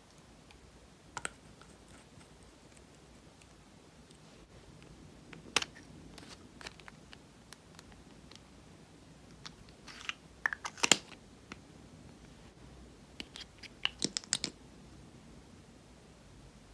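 Scattered sharp clicks and taps of small plastic makeup containers being opened and handled over a clear plastic bowl, with a quick flurry of them about ten seconds in and another about fourteen seconds in.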